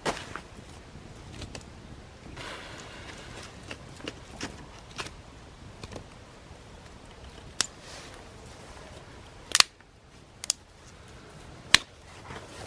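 A few sharp, separate clicks or snaps spaced seconds apart, the loudest about two-thirds of the way through, with a soft rustle about two seconds in.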